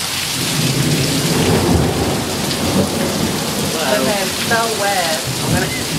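Heavy rain pouring steadily, with a long, rolling rumble of thunder that builds from just after the start and carries on underneath the rain.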